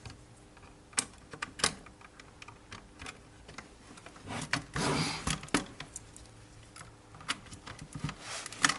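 Irregular small clicks and knocks of metal parts being handled, with a short scraping rustle about halfway through: hands working and testing a 3D printer's Z-axis leadscrew bracket and its lock nuts.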